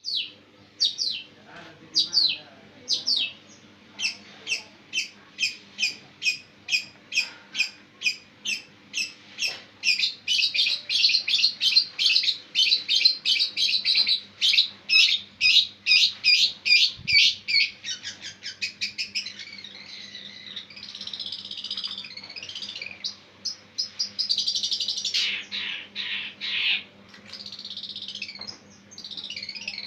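Long-tailed shrike (pentet) calling loudly: short, sharp repeated notes that speed up from about one a second to a rapid series, then turn into a busier, varied chattering warble in the last third.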